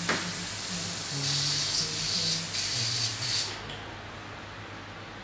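Paint spray hissing, with a short break about two and a half seconds in, then stopping about three and a half seconds in, over background music with low sustained notes.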